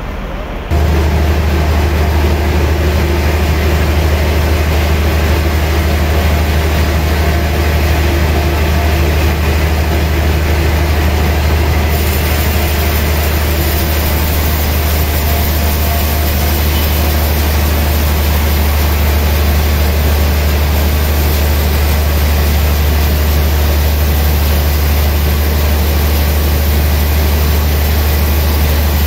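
Large band sawmill running with a steady, loud low hum and a hiss over it, the blade spinning free before it enters the log. The drone jumps up just under a second in, and the hiss grows brighter about twelve seconds in.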